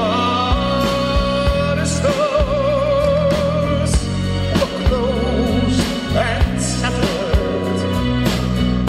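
Live rock band playing a song: a male lead singer holds long notes with wide vibrato over guitars, bass guitar, keyboard and a drum kit keeping a steady beat.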